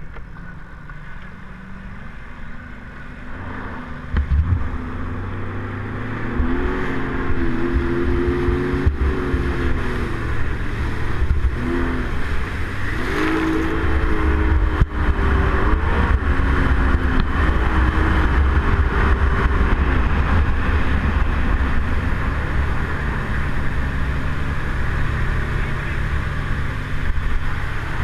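Personal watercraft engine pulling away and running at speed. Its pitch rises and falls with the throttle, over a heavy rumble of wind and rushing water.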